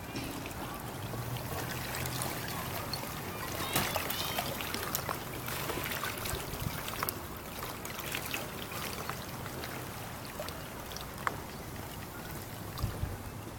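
Pieces of ice floating in lapping water, clinking against each other in many small, bright, musical ticks and pings over a steady wash of water.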